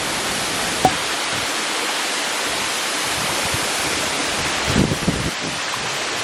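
Waterfall pouring with a steady, even rush of water, with a brief click about a second in and a few low bumps near five seconds.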